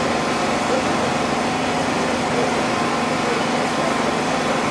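A steady mechanical hum with an even hiss over it, holding level throughout.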